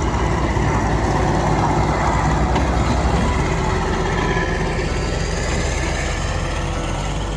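Diesel train engine running with a steady low rumble, the sound of a train at a railway platform.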